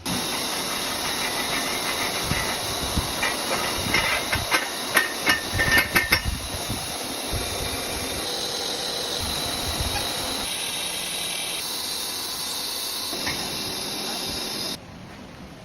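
Electric welding arc hissing steadily, with a run of sharp crackling pops about three to six seconds in; it cuts off abruptly near the end.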